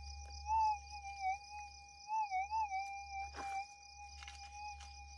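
Minelab GPX 6000 metal detector's steady threshold tone, warbling and rising in pitch about half a second in and again around two seconds in as a scoop of dirt is passed over the 17-inch coil: the detector signalling a target in the soil. A steady insect chorus runs beneath it.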